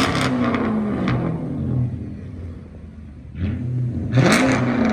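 Straight-piped 5.7 HEMI V8, its mufflers and resonators removed, revved twice from idle. A sharp blip comes right at the start and another about four seconds in; each time the pitch rises quickly, then falls back to idle.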